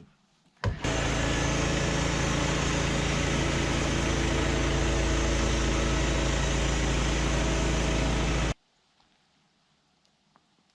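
Portable band sawmill's petrol engine running at a steady speed. It starts abruptly just under a second in and stops abruptly about two seconds before the end.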